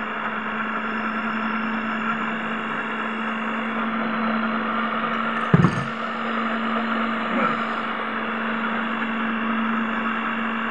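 Electric stand mixer running steadily with a constant motor hum, its twin beaters working eggs into brioche dough. One sharp knock about halfway through.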